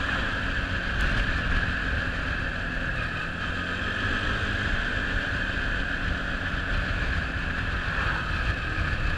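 Quad bike's engine running steadily under way, with wind noise on the microphone.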